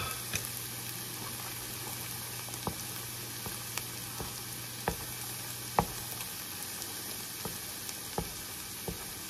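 Egg and fried rice sizzling steadily in a hot pan, with a wooden spatula knocking and scraping against the pan every second or so as the egg is stirred.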